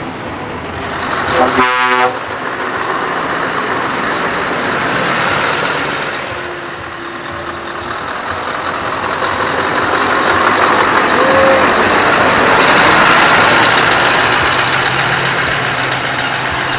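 A short air-horn blast about a second and a half in, then a Scania R500 truck's V8 diesel running as the truck drives slowly past, swelling as it comes close.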